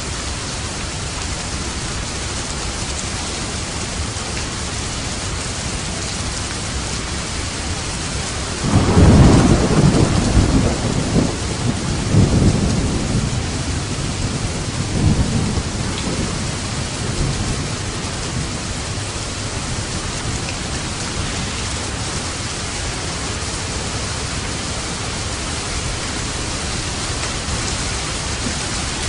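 Steady rain falling, with a thunderclap about nine seconds in that rolls on in several low rumbles for eight seconds or so before dying away under the rain.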